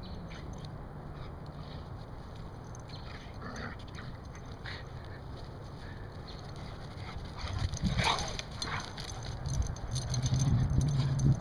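A Rottweiler–German Shepherd mix and a second dog play-fighting, with scuffling and grunting growls. The sounds grow louder in the last few seconds as the dogs come close, where a low growling rumble sets in.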